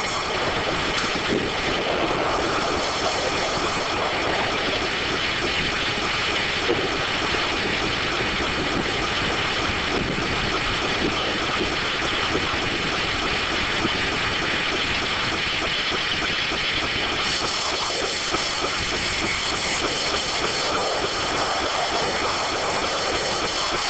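D9 duplex circular sawmill running, its spinning sawblades giving several steady high whining tones over a dense, even machine noise. The highest part of the sound grows louder about three-quarters of the way through.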